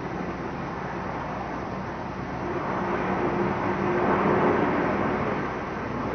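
Antonov An-225's six turbofan engines running as the huge aircraft rolls along the runway, a steady rushing jet noise with a low hum that swells about halfway through.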